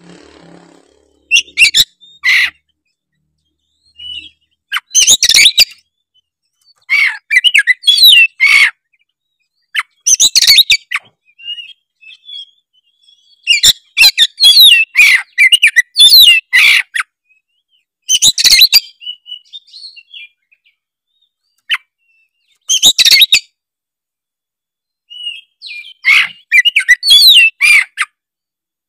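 Oriental magpie-robin (kacer) in full, vigorous song. It gives loud, varied whistled and chattering phrases in bursts of about a second or so, separated by short pauses.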